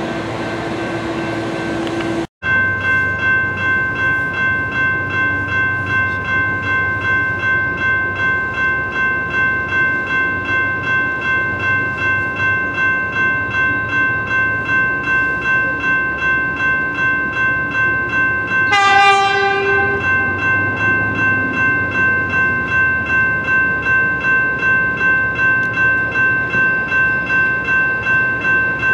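Railroad grade-crossing bell ringing in even strokes, about two a second, as a passenger train approaches. About two-thirds of the way through, the train's horn gives one short blast. Before a cut near the start there is a brief steady hum.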